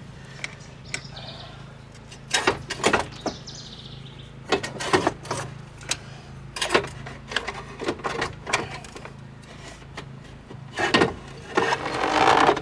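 Ratchet with a T40 Torx bit unbolting an ATV winch from its frame: bursts of ratchet clicking and metal knocks come in several short clusters, with a longer dense burst near the end as the winch comes free. A steady low hum runs underneath.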